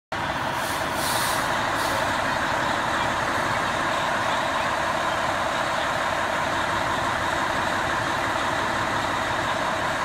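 Fire engine's diesel engine running steadily in the station bay, with a few short hisses of released air in the first two seconds.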